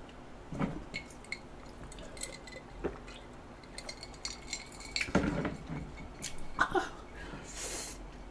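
Cutlery clicking and clinking lightly against a dish, a few of the clinks ringing briefly.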